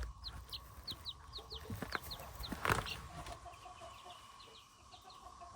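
Week-old chicks peeping: short, high, falling cheeps, several a second. A brief knock sounds about two and a half seconds in.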